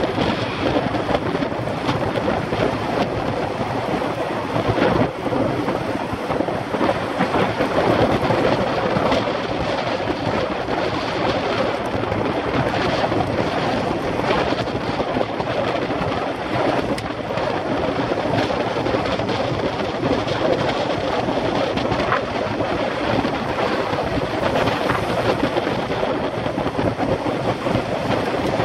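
Wind buffeting the microphone of a camera riding along with a cyclist, a steady loud rush of noise with no break.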